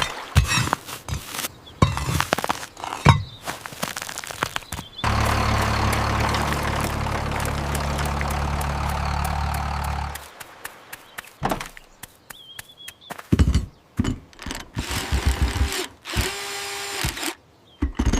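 A series of short knocks and clicks, then a small engine or motor running steadily for about five seconds before cutting off suddenly, followed by more short knocks and tonal sound effects.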